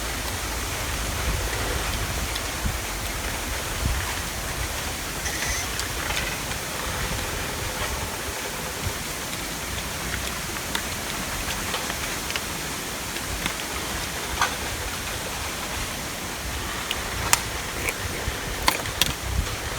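Steady rushing noise, even and unbroken, with a few sharp clicks and ticks near the end.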